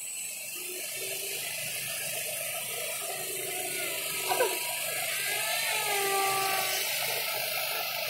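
Radio-controlled model planes, a model F-22 Raptor jet and a model Piper Cub, flying overhead: a steady high hiss and buzz of their motors that grows a little louder toward the middle, with a few faint falling tones partway through.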